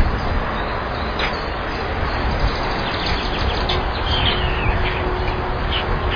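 Steady rushing noise on an outdoor nest camera's microphone, with short high bird chirps now and then, most of them about three to four seconds in.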